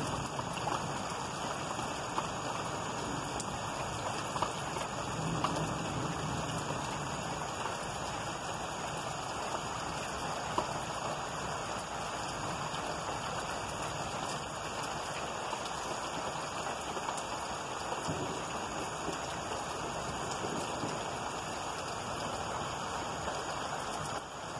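Steady heavy rain falling, a continuous hiss with scattered drop clicks. Low rumbles of thunder swell briefly at the start and again about five seconds in.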